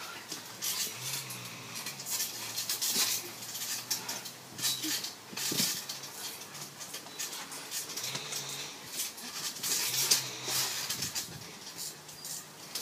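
Irregular creaking and rustling from a backyard trampoline's springs and mat as people shift about on it.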